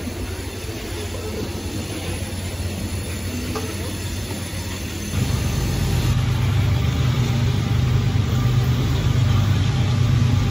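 Freight train of open-top gondola cars rolling past: a steady rumble of wheels on rail. About halfway through it jumps to a louder, deeper rumble.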